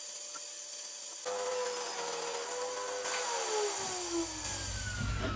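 Table saw motor running with a steady whine that cuts in about a second in. Past the middle it spins down after switch-off, its pitch falling, with a low rumble as it slows.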